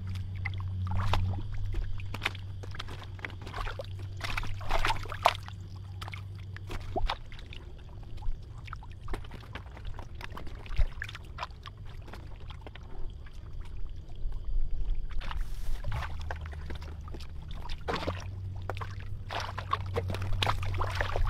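Irregular splashing and sloshing in shallow muddy water as hands and legs work through the mud, groping for catfish, with a low steady hum underneath for much of the time.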